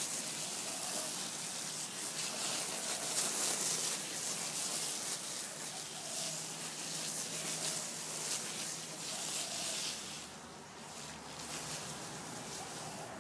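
Garden hose spraying water onto dry straw mulch: a steady hiss that eases off about ten seconds in.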